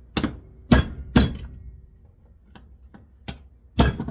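Hammer blows on a steel punch set against a bench grinder's metal housing: about seven sharp metallic strikes in uneven groups, some ringing briefly, the hardest a little under a second in, just after a second in, and near the end.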